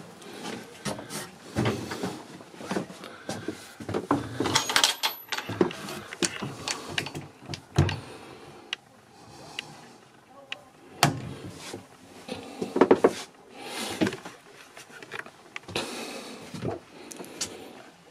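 Wooden cupboard doors in a small cabin being opened and handled: a string of scattered knocks, clicks and rustles, with no steady machine sound.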